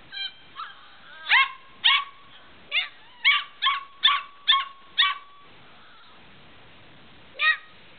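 Australian Shepherd puppy barking in short, high-pitched yips: about ten in quick succession, then a pause of about two seconds and one more near the end.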